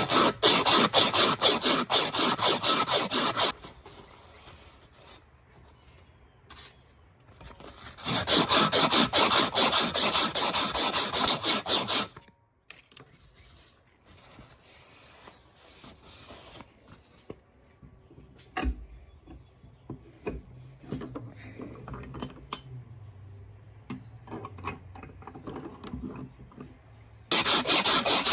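Fast, even rasping strokes of a hand tool working an old hammer, in three loud bouts of a few seconds each. Quieter clicks and knocks of handling come between the bouts.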